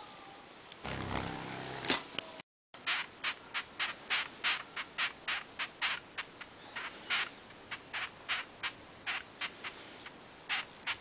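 White-striped longhorn beetle (Batocera lineolata) stridulating while held in the fingers: a run of short, sharp rasping chirps at about three a second, the squeak longhorn beetles make by rubbing the thorax against the wing base when handled. Near the start there is a second or so of rough, lower rustling sound.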